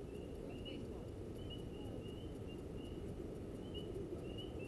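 Outdoor ballfield ambience: a low murmur of distant voices over steady background noise, with faint short high chirps repeating every half second or so.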